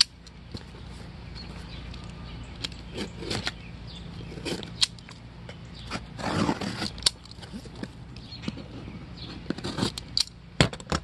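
A knife cutting open a cardboard shipping box, with scrapes and sharp clicks as the cardboard is sliced and the box is turned and handled.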